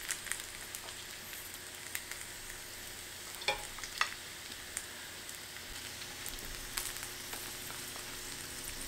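Oil sizzling faintly on a heated electric hot plate as filled gyoza wrappers are laid on it, with a few light clicks, the clearest about three and a half and four seconds in.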